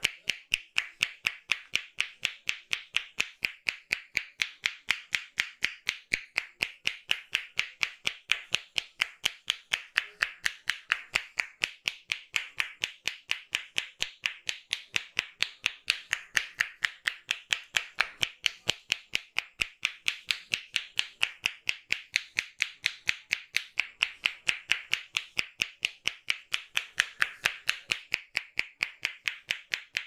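Rhythmic hand claps and slaps of a barber's head massage: sharp, evenly paced strikes, about three a second, kept up without a break.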